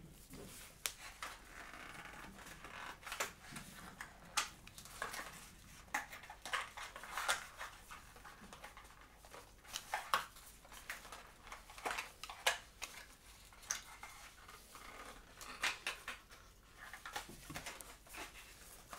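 Hands handling and opening accessory packaging: irregular small clicks, taps and rustles, scattered throughout.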